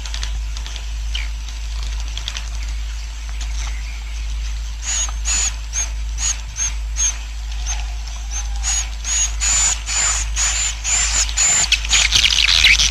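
Swiftlet colony roosting call ('suara inap'), the lure sound played to draw swiftlets in to roost. It starts as a hissy twittering. From about five seconds in it becomes a run of short high chirps, several a second, growing denser and louder toward the end.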